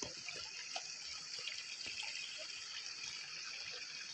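Shallow stream running over stones: a faint, steady rush of water, with a few small knocks scattered through it.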